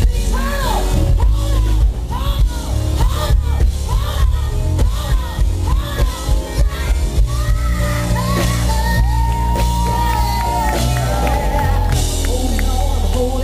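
Live gospel performance: a female singer ad-libbing in rising and falling vocal runs over a band with a heavy bass. She holds one long, steady note about nine seconds in.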